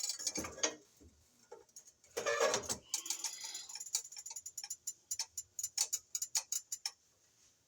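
Stove burner control clicking as the heat is turned up: a quick clatter about two seconds in, then a run of sharp, evenly spaced ticking clicks, a few a second, that stops shortly before the end.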